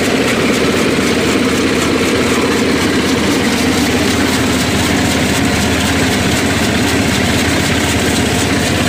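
Chaff cutter driven by a diesel engine, running steadily while its blades chop green fodder.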